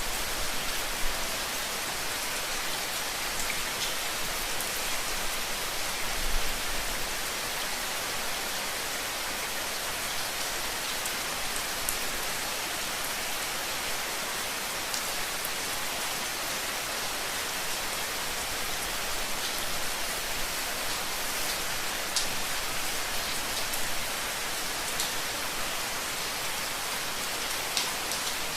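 Steady rain falling on a surface, an even hiss dotted with the ticks of individual drops.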